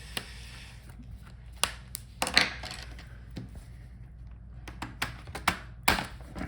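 Scattered small clicks and taps of a screwdriver working the bottom-case screws out of a Lenovo ThinkPad X1 Carbon Gen 9 laptop, with a short cluster of clatter about two and a half seconds in, over a low steady hum.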